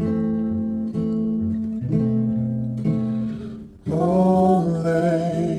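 Background music: a song with acoustic guitar chords struck about once a second, and a singing voice coming in about four seconds in.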